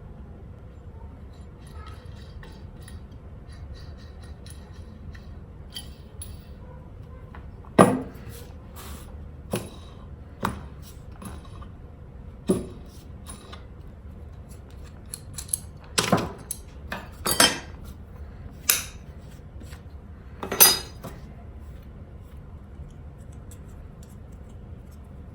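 Metal parts of a hand plane clinking and knocking against each other and the bench as they are handled, about ten sharp irregular knocks beginning about eight seconds in.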